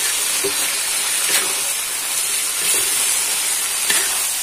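Baby corn and beef meatball stir-fry sizzling steadily in a wok, with a spatula stirring it and scraping the pan about every second and a half.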